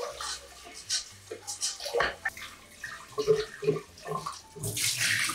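Kitchen tap running into a stainless steel pot in a sink as the pot is scrubbed out and rinsed, with irregular splashing and knocks. A louder rush of water comes near the end as the pot is tipped under the stream.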